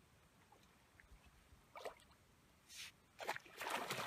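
Water splashing as a fish thrashes in a cast net being hauled in at the bank: a few short splashes from about two seconds in, building into continuous heavy splashing near the end.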